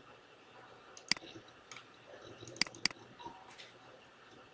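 Computer mouse buttons clicking: a single click about a second in, then a quick double click about a second and a half later.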